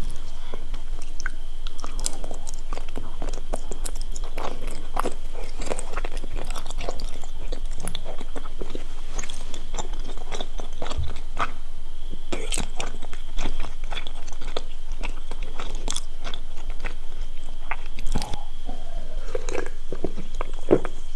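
Close-up wet chewing and biting of chewy Korean rice cakes (tteokbokki) in sauce, with sticky mouth smacks and clicks. Near the end come swallows as she drinks from a can of cola.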